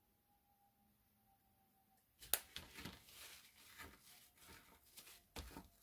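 Near silence, then about two seconds in a sharp click followed by irregular light scratching and rubbing: a stiff paint brush dry-brushing metallic paint over a resin-printed model.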